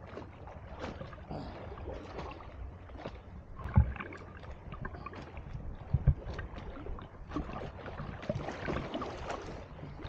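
Sea water splashing and sloshing as a swimmer kicks and strokes on his back right beside the camera. Two loud low thumps stand out, about four and six seconds in.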